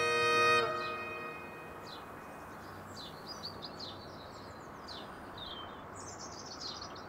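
Small birds chirping and singing in short high phrases over faint outdoor background noise. Before that, a held musical chord fades out in about the first second.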